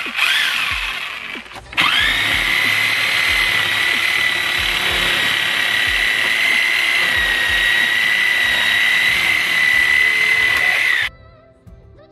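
Reciprocating saw with a 12-inch Diablo blade cutting through PVC pool plumbing pipes: a short burst at the start, then a steady high whine for about nine seconds that cuts off abruptly near the end.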